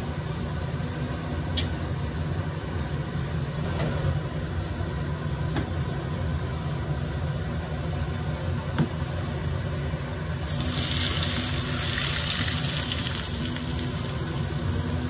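Smoking-hot cooking oil poured from a wok over sliced fish, scallions and Sichuan peppercorns, sizzling loudly from about ten seconds in to the end. Before that, a steady low hum with a few light knocks.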